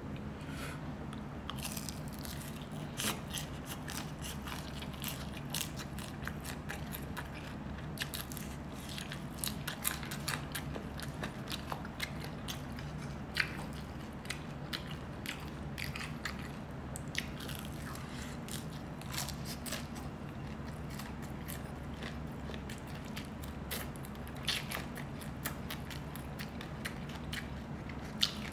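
Close-miked chewing and biting of grilled chicken intestine (isaw): many small wet clicks and smacks, scattered irregularly, over a steady low hum.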